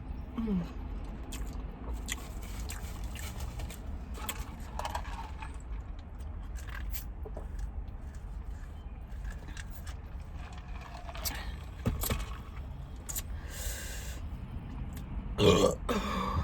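Close-mouthed chewing and wet mouth clicks from eating a fried chicken sandwich, over a steady low hum. Near the end comes one short, loud burp.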